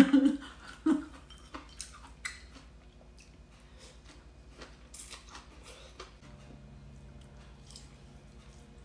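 A person eating noodles: quiet chewing and mouth sounds, with scattered light clicks of wooden chopsticks against a small ceramic bowl.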